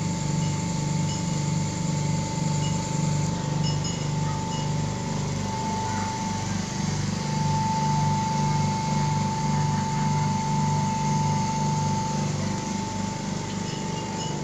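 Jewellery polishing machine running steadily: a motor hum that pulses about one and a half times a second, a steady whine, and now and then a faint light chink.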